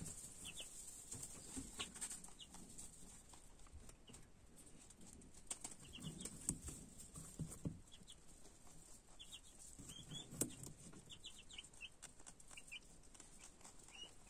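Faint peeping of young chicken chicks: short high chirps in small clusters, coming every second or so. A few soft low rustles and knocks come in between.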